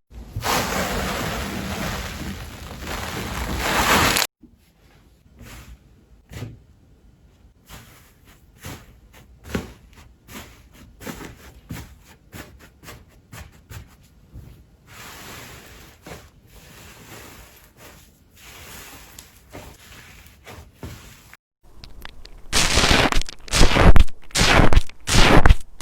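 Slime being handled and squished. The first few seconds are a dense crackling. Then come quiet, scattered clicks and small pops, and from near the end loud, rhythmic squishes at about two to three a second.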